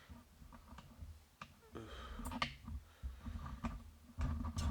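Scattered light clicks and knocks, a few a second, over a low hum.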